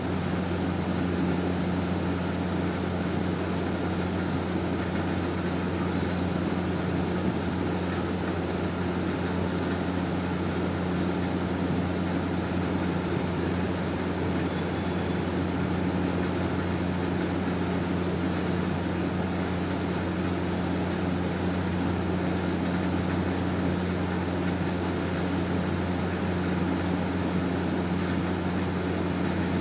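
Steady low drone of a running machine, constant in pitch and level.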